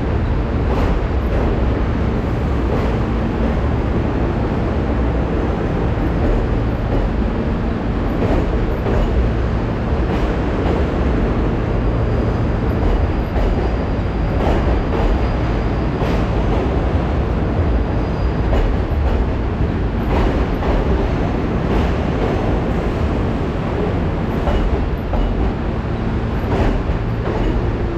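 Vehicle in motion: a loud, steady rumble with scattered short clicks and knocks.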